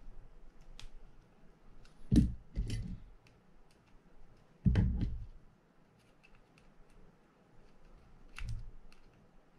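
Small screws in a Penn Spinfisher 750SSM spinning reel being driven with a precision screwdriver: light metallic ticks and scrapes, broken by a few louder knocks as the reel and screwdrivers are handled.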